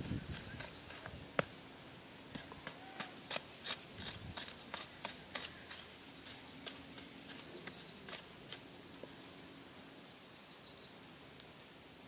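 A knife blade chopping and scraping into hard dry soil, a run of sharp irregular clicks about two a second that stops after the middle. A few faint, brief high chirps sound over it.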